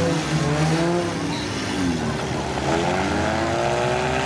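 Several compact demolition derby cars' engines revving at once, their pitches rising and falling over each other as the cars push against one another in the dirt.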